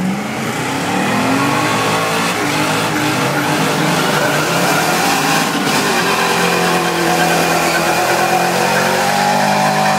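Pickup truck doing a burnout: its engine revs up over the first second or so, then is held at high revs while the rear tyres spin and squeal on the pavement.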